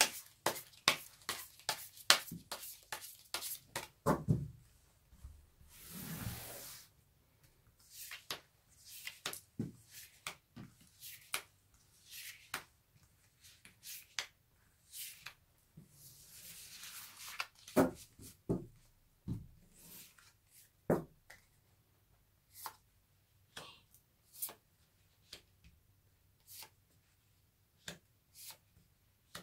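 Tarot cards being handled: a rapid run of card snaps over the first few seconds as the deck is shuffled, a soft sliding sweep as the cards are spread out across the cloth, then single cards drawn and laid down with scattered light taps and flicks.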